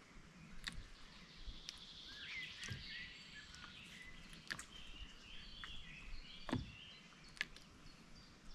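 Faint outdoor ambience with a small bird singing a run of short, warbling chirps, and a few soft clicks.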